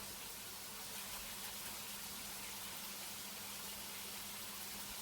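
Chicken fillets frying in a pan: a faint, steady sizzle, with a low steady hum underneath.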